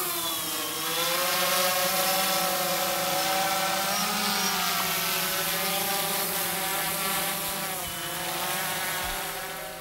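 Buzzing whine of a quadcopter drone's motors and propellers, laid in as the sound effect of an animated drone logo. The pitch drops over the first second, then holds steady with a slight waver and eases off near the end.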